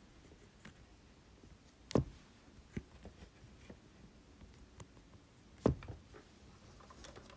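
Quiet room with a few light handling knocks and clicks: two sharper knocks about two and six seconds in, with scattered fainter ticks between them.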